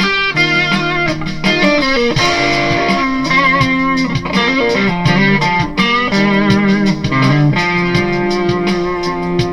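Kiesel Delos electric guitar played through a PRS HDRX 20 tube amp: picked single-note lead lines with bends and vibrato over held lower notes.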